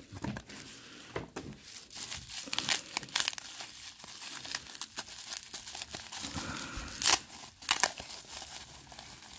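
Plastic bubble wrap crinkling and rustling as it is handled and unwrapped from around a bundle of cards, with a couple of sharper cracks about seven seconds in.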